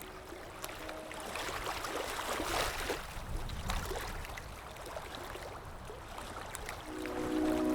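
Lake water lapping and trickling, with small drips and splashes, a little louder about two to three seconds in. Soft music with sustained tones comes back in near the end.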